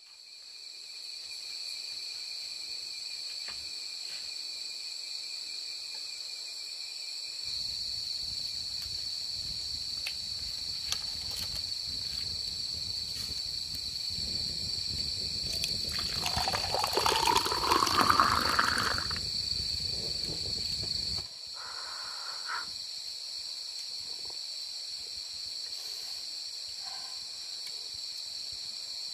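A steady chorus of insects trills throughout. Midway, liquid is poured into a green bamboo-tube cup, loudest as the pitch rises while the cup fills.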